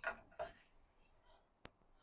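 A knife and cake being handled on a wooden cutting board: two short soft scraping swishes, then one sharp click about a second and a half in, as of the knife laid down on the board.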